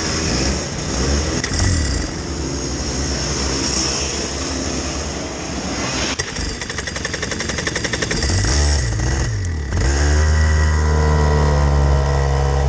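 Rotax Junior two-stroke kart engines running at idle, with a rev rising and falling shortly before ten seconds in. After that a close engine settles into loud, steady running.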